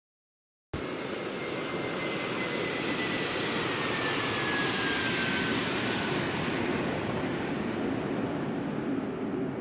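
Jet aircraft passing, a steady engine roar with a high turbine whine that glides slowly down in pitch as it goes by. It cuts in suddenly after a moment of dead silence.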